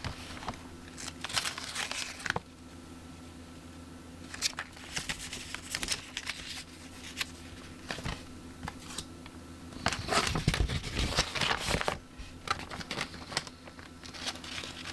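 Plastic bags and paper crinkling and rustling as model-kit parts and instructions are handled, in irregular bursts that are busiest about ten seconds in. A low steady hum runs underneath.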